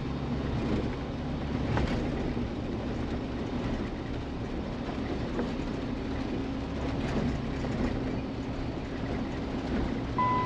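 Jeep driving through deep snow: a steady rumble of engine and tyres with light clatter. A short high beep sounds near the end.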